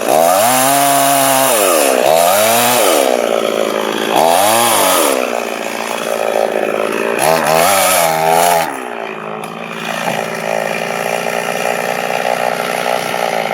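Chainsaw cutting the notch in a tree trunk, revving up and dipping in pitch under load in three surges. About two-thirds through it drops to a steady idle.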